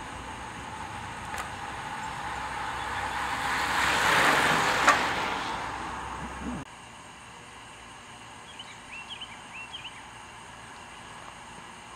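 A vehicle passing close by: a rush of road noise swells to a peak about four seconds in, then fades, and cuts off abruptly at an edit. A few short faint chirps follow.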